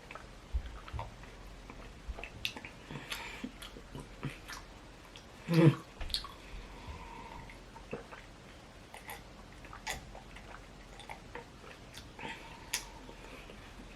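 Close-up chewing and mouth sounds of a person eating, with scattered small wet clicks and one louder short sound about five and a half seconds in.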